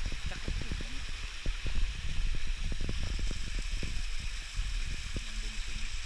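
Steady rush of a small waterfall and its stream, with irregular low thumps and knocks throughout.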